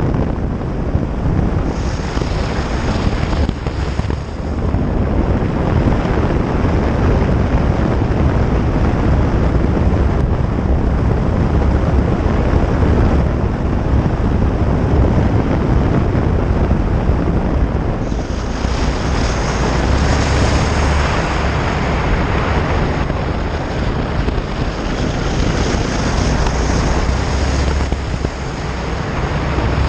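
Honda Varadero V-twin motorcycle riding along a gravel road, its engine running steadily under a loud rush of wind over the microphone. The wind turns harsher and brighter for about ten seconds in the second half.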